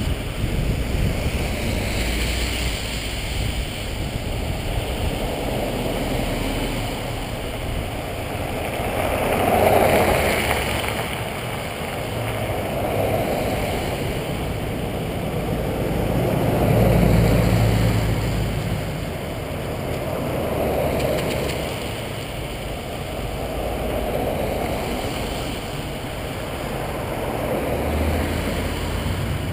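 Law enforcement vehicles in a procession passing one after another, their tyre and engine noise swelling and fading every few seconds, loudest twice near the middle. Wind rumbles on the microphone underneath.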